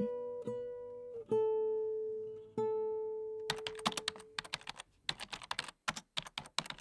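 Acoustic guitar music closing on three single plucked notes that ring out and fade. About halfway through, a quick, irregular run of typing clicks starts, the sound effect for on-screen text being typed out letter by letter.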